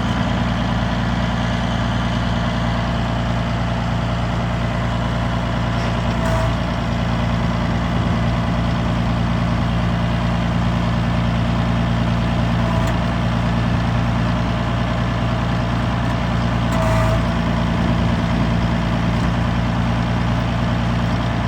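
Caterpillar D4C Series 3 dozer's diesel engine running steadily at raised throttle. A couple of brief, faint higher whines come through about six and seventeen seconds in.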